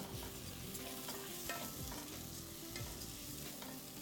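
Raw rice grains frying with browned onion in a pot, stirred with a spoon: a steady sizzle with small scrapes and clicks of the spoon against the pot.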